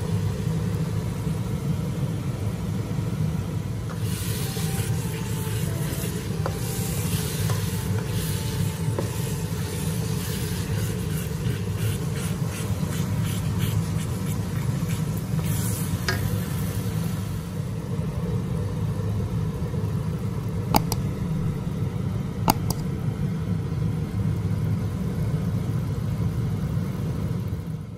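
Thick pineapple chilli sambal sizzling in a wok while a spatula stirs and scrapes through it, over a steady low rumble. Two sharp clicks of the spatula against the pan come about a second and a half apart, late on.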